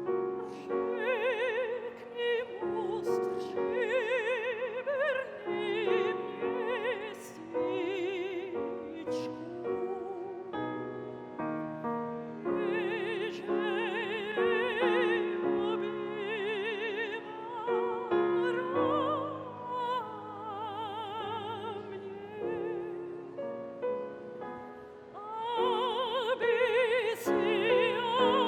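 Operatic singing with a wide, regular vibrato over piano accompaniment, swelling louder near the end.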